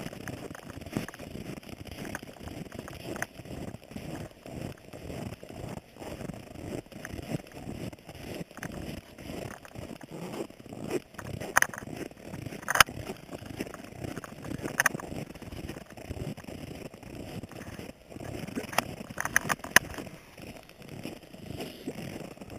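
Packed snow crunching and scraping under a camera moving low along a snow trail, a dense rough crackle with a few sharp clicks and knocks from the mount, mostly about halfway through and near the end.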